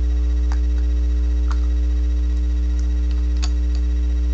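Steady electrical mains hum, the loudest sound throughout. Over it, about four small clicks of plastic Lego bricks being handled and tapped on a wooden table.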